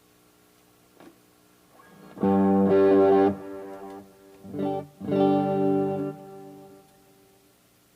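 Greco WS-STD electric guitar played through an amp: a few loud chords struck from about two seconds in, a second group around five seconds, then left to ring and fade away near the end.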